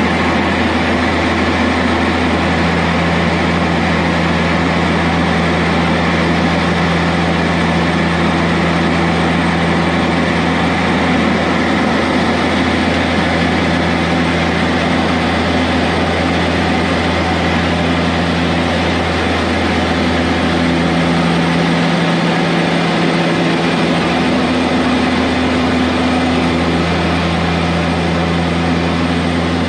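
A de Havilland Canada Twin Otter seaplane's two turboprop engines and propellers running steadily on the approach to landing, heard inside the cockpit. The drone holds several low hum tones that waver slightly over the engines' steady noise.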